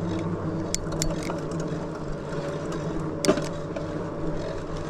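Lectric XPeak 2.0 electric bike being ridden: a steady low hum and rolling noise, broken by a few sharp clicks and rattles, the loudest about three seconds in.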